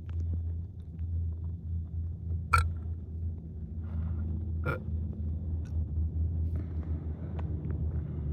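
Steady low rumble inside a parked car, with two sharp clicks about two seconds apart.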